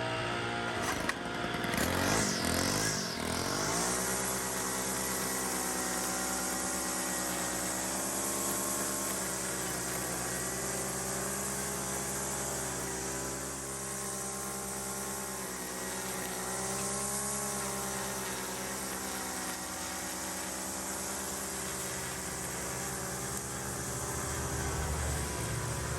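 Small petrol engine running steadily, its pitch wavering a little as the load changes. It is unsettled for the first few seconds, then settles into a steady note.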